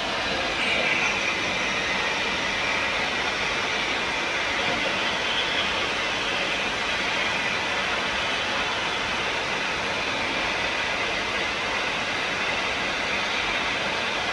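Fully automatic crystal pendant machine running: a steady, even machine noise with a bright hiss and no distinct rhythm.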